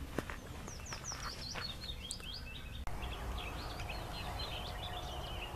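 Songbirds chirping and singing over a low rumble of outdoor background noise. There are a few light knocks in the first second. About halfway through, the background changes abruptly and a faint steady tone joins the bird calls.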